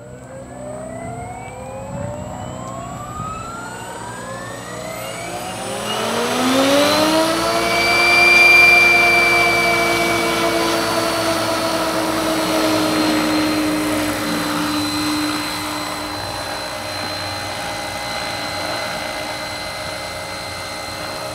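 Electric SAB Goblin Urukay RC helicopter spooling up: a motor and rotor whine that rises steadily in pitch for about seven seconds as the rotor comes up to head speed. It then holds a steady pitch, with the rotor running as the helicopter lifts into a low hover.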